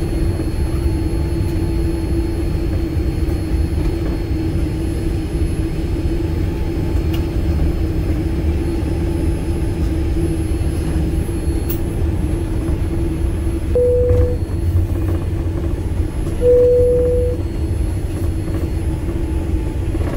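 Boeing 787-9 airliner cabin noise: a steady low rumble with a constant hum over it. Two short steady tones sound about fourteen and sixteen and a half seconds in.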